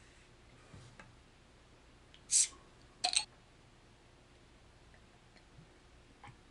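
A beer bottle being opened: a short hiss of escaping gas as the cap comes off, about two seconds in, then a brief metallic clink just after. A few faint small clicks are handling sounds.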